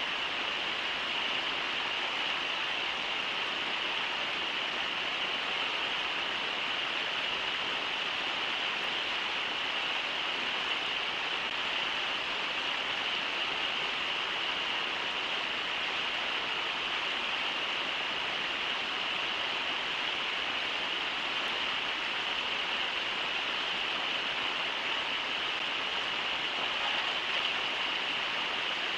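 Steady rush of river water running over shallow riffles.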